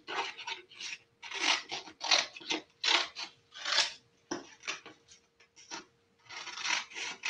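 Sheets of paper rustling and rubbing as they are handled, in a string of short bursts that thin out for a couple of seconds past the middle.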